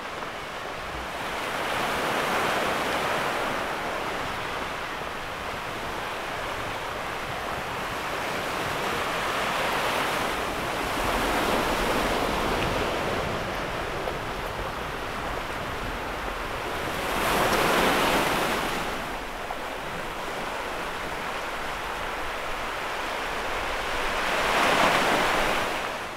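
Sea waves breaking and washing against a boulder-and-pebble shore, coming in four slow swells about seven seconds apart, the last one near the end the loudest.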